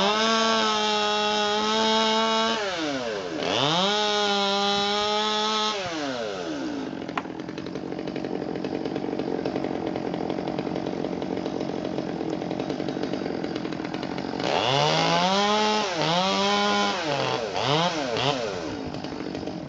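Chainsaw engine revved up to full throttle and held for a couple of seconds, dropped back, revved and held again, then idling for several seconds before a final run of revving with a few quick throttle blips near the end.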